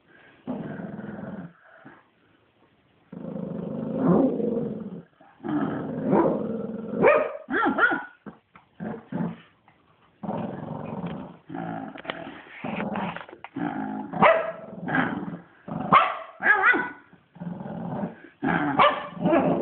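Shih tzu growling in play: long growls of a second or two with short gaps, broken by short barks that come thicker in the second half.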